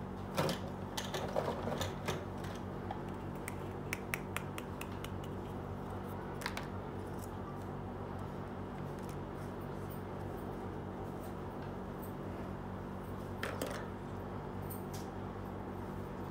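Small plastic toy pieces clicking and tapping as they are handled and set down, a quick cluster of clicks in the first two seconds and a few single taps later, over a steady low hum.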